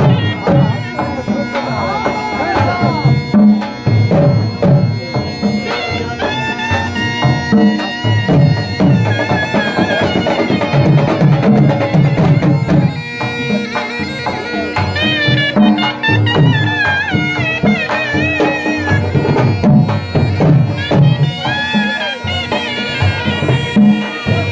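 Saraiki jhumar folk music: a reedy wind instrument plays an ornamented, wavering melody over a steady drone, driven by continuous drumming.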